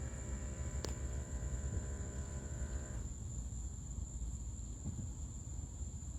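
Steady, high insect drone at night over a low rumble. A hum made of several steady tones stops about three seconds in, and there is a single click about a second in.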